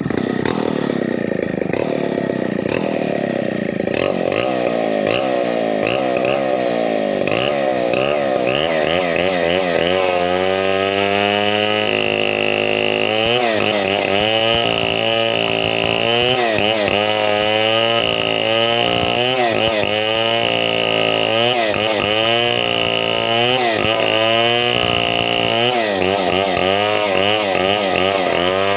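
Chainsaw running at high speed while cutting wood, its engine note dipping and rising again and again as the chain bites into the cut.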